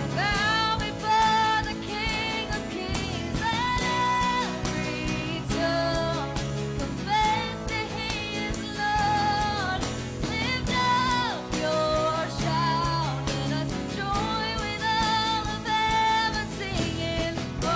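Live worship band playing a contemporary worship song: a woman sings the lead melody in phrases over drums and guitars.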